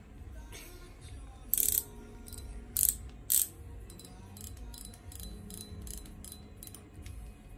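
Shimano Biomaster spinning reel being handled and worked: three sharp clacks between about one and a half and three and a half seconds in, then a run of lighter clicks at about three a second, over faint background music.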